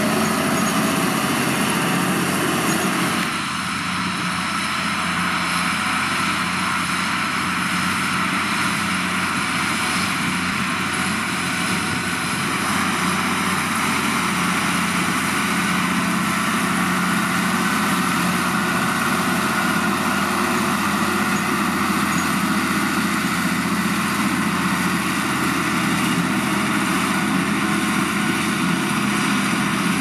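Belarus MTZ 1221.2 tractor's six-cylinder turbodiesel running steadily under load while it pulls a mounted reversible plough through the soil.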